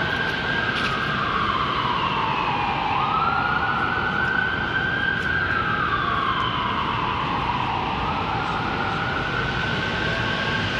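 Emergency vehicle siren sounding in a wail pattern. A single tone slides slowly down, sweeps back up and holds, about once every five seconds, over steady street noise.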